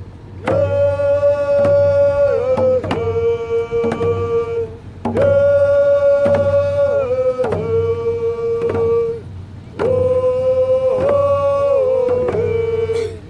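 Native American hand-drum song: a voice holds long notes in three phrases of about four seconds each, each stepping down from a higher note to a lower one, over a steady drumbeat.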